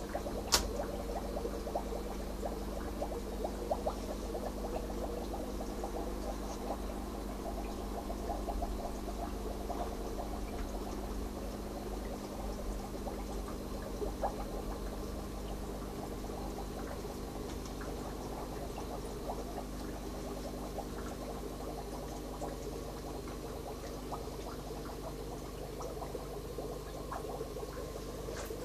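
Nutrient solution trickling and gurgling through an NFT hydroponic kit over a steady low hum, with a sharp click about half a second in.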